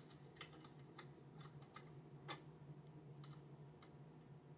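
Faint, irregular small clicks and taps of a serger needle tool and a needle being handled at an embroidery machine, about eight clicks with a slightly louder one a little past the middle, over a low steady hum.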